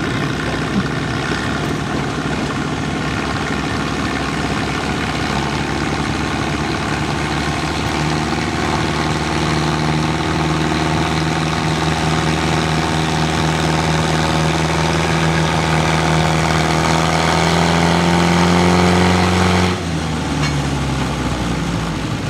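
Antique farm tractor's engine working hard under load while pulling a weight-transfer sled at a tractor pull. Its revs climb slowly and it gets louder, then the engine note drops off abruptly near the end as the throttle comes off and the pull ends.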